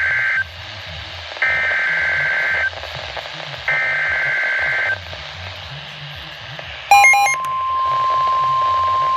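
Emergency Alert System SAME header over NOAA Weather Radio: rasping data-tone bursts of about a second each, a second apart, the last two heard in full. About seven seconds in comes a short electronic chirp, and then the steady single-pitched warning alert tone starts.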